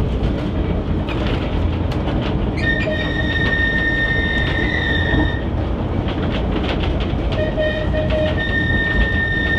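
Manx Electric Railway Winter Saloon tramcar running over the rails: a steady rumble with scattered clicks from the rail joints. A high, steady wheel squeal on the curving track sets in about three seconds in, breaks off after a few seconds, and returns near the end.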